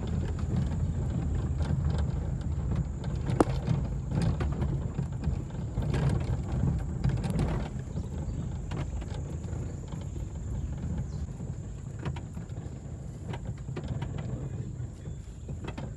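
Car driving slowly over a rough unpaved drive, heard from inside the cabin: a low rumble from the engine and tyres with scattered knocks and clicks as it bumps over the uneven surface.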